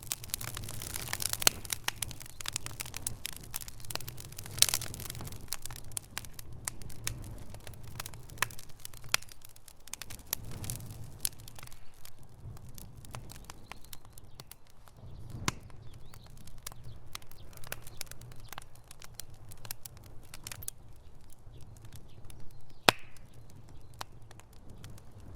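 Wood fire burning in a fireplace, crackling with dense irregular pops and a few sharper, louder snaps, over a steady low rumble.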